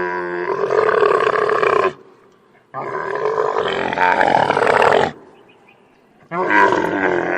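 Camel calling: three long, loud calls of about two seconds each, with short pauses between.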